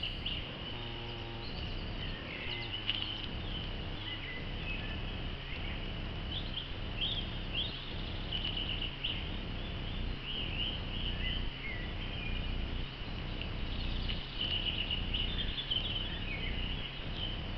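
Small birds singing in short chirps and quick whistled notes over a steady high-pitched drone, with low wind rumble on the microphone.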